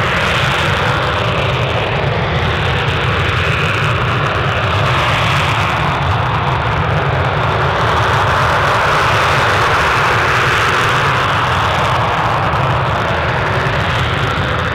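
Panavia Tornado GR4's twin RB199 turbofan engines running loud and steady, with a strong low rumble and slow swells in pitch and level.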